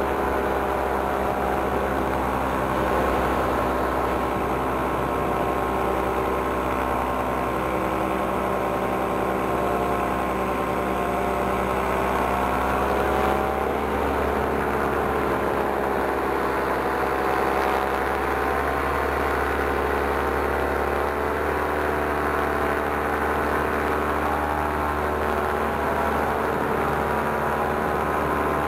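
Paramotor engine running steadily in flight, its pitch dipping and rising a little about halfway through.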